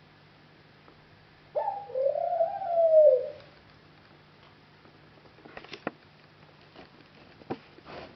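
An animal's single long call, about two seconds, sliding up and then down in pitch, followed a few seconds later by several light taps.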